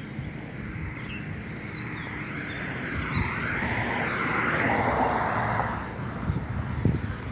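A vehicle passing: a rush of noise that swells, peaks about five seconds in and fades away. Footsteps on the pavement knock near the end.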